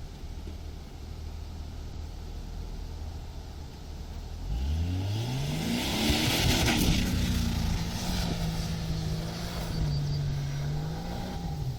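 Off-road vehicle engine driving in sand: it idles low, revs up about four and a half seconds in with a loud hiss peaking shortly after, holds a steady note, then falls away near the end.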